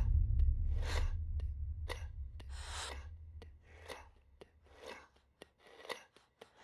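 A deep low rumble fading out over the first few seconds, under a person's heavy breathing, about one breath a second, with a few small sharp clicks between the breaths.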